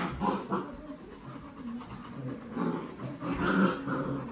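A German shepherd puppy and an adult German shepherd play-fighting, with short, irregular growling noises; the loudest come about two and a half and three and a half seconds in.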